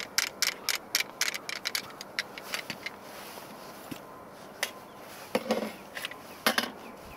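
Rapid light metallic clicking, about four a second, as a thread protector is twisted onto the Glock 21's threaded barrel, stopping about two and a half seconds in. A few handling knocks from the pistol follow later on.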